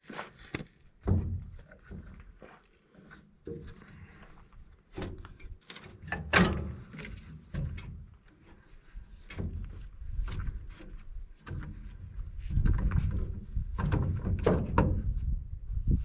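Irregular clunks, knocks and rattles of metal parts being handled and worked on while an air-conditioning unit is taken apart for scrap, busier in the last few seconds.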